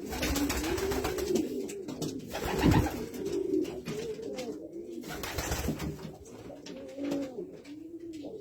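Racing pigeons cooing repeatedly in low, rising-and-falling calls, with bursts of rustling or handling noise a few times.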